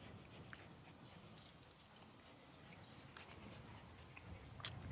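Faint close-up chewing and mouth sounds, with a sharp click near the end.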